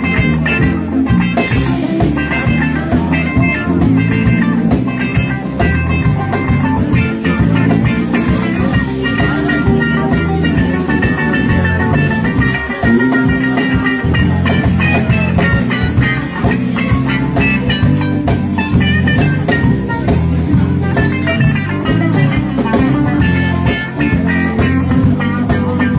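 Live rock band jamming: electric guitar, bass and drums playing an instrumental passage with a steady beat.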